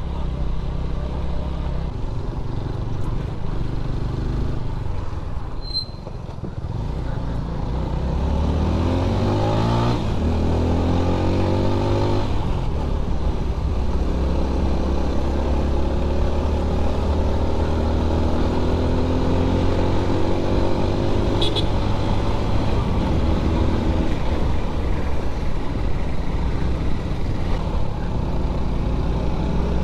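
Motorcycle engine under way on a hill climb: its pitch rises twice about eight to twelve seconds in, dropping at each gear change, then it holds a steady cruising note.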